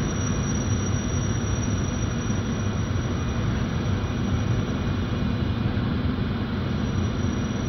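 Train of passenger coaches rolling slowly along a platform track under a station roof: a steady low rumble.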